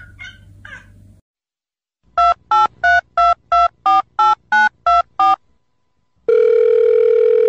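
Telephone keypad touch-tones: ten short two-note beeps at about three a second, dubbed in as a thumb presses a dog's paw pads like phone buttons. About a second later a steady telephone line tone starts and holds.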